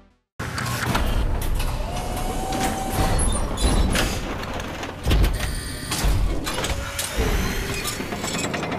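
Sound effects of science-fiction spaceship doors sliding open one after another: mechanical whooshes and clanks, with the loudest thump about five seconds in, over music.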